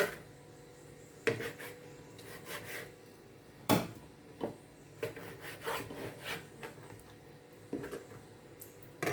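Knife cutting and scraping on a cutting board in short, irregular strokes, with a few sharp knocks of the blade on the board, as the fat is trimmed off raw pork chops.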